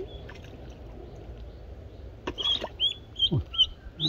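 Duckling tethered as live bait, peeping in a string of short high chirps that come thick and loud in the second half, with a brief noisy burst of scuffling about two seconds in.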